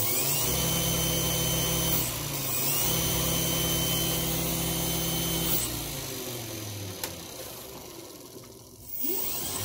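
Toyota Tundra alternator converted to a brushless three-phase motor, run by an e-bike brushless controller on a 56 V battery. It spins at speed with a steady hum and a high whine, dips briefly about two seconds in, then winds down over a few seconds from about halfway and spins up again near the end.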